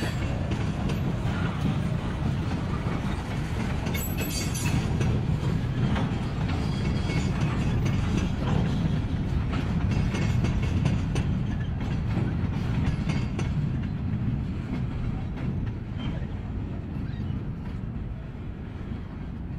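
Freight train cars rolling past: a steady rumble of steel wheels on rail with scattered clicks and clanks, easing off toward the end.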